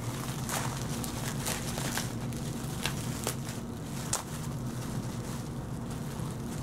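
Clear plastic packaging bag crinkling and crackling in irregular bursts as an orange 3D-printed blaster part is unwrapped by hand, over a steady low hum.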